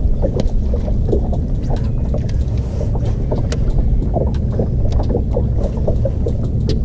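Wind buffeting the microphone on a bass boat in choppy water: a steady low rumble, with small irregular slaps of the chop against the hull.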